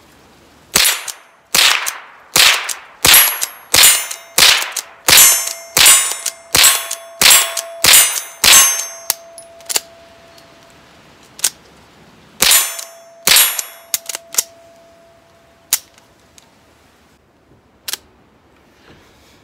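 Rossi pump-action .22 LR rifle fired rapidly, about two shots a second for the first eight or nine seconds, with steel plate targets ringing on the hits. After a gap with a few small clicks there are two more shots, then scattered clicks of the action. The shooter says this rifle has been giving light primer strikes (misfires).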